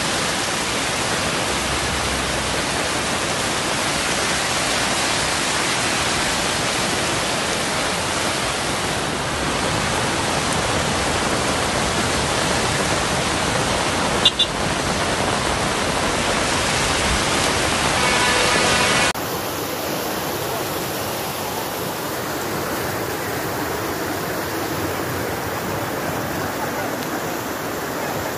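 Steady roar of rushing floodwater. About two-thirds in it cuts abruptly to a quieter, even rush.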